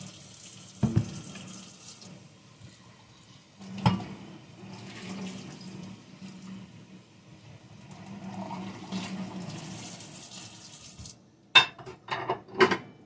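Kitchen tap running into a stainless steel sink as a ceramic bowl is filled with water, with a knock of the bowl twice along the way. The water cuts off about two seconds before the end, followed by a quick run of sharp clinks and knocks.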